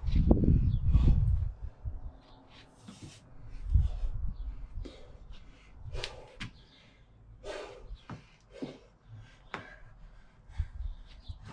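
Body and kettlebell moving on the floor during a Turkish get-up. Low thuds and rubbing close to the microphone for the first second and a half and again about four seconds in, then a string of short hissing puffs.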